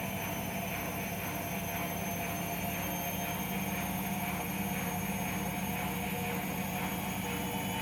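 Siemens washing machine's drain pump running with a steady hum, over a faint regular pulsing.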